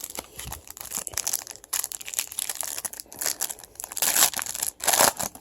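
Foil wrapper of a Bowman Chrome trading-card pack being torn open and crinkled by hand, in a run of crackling rustles, loudest near the end.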